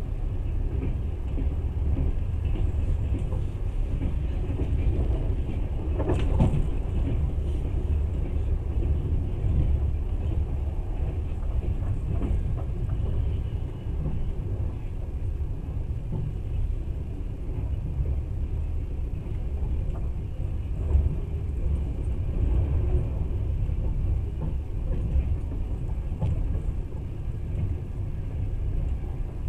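Train running at speed, heard on board: a steady low rumble of the wheels on the rails, with one sharper clatter about six seconds in.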